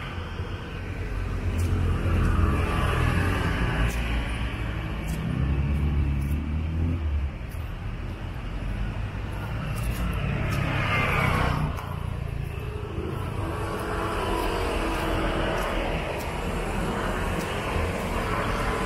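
Street traffic: motor vehicles running and passing on the road, with one going by close about eleven seconds in.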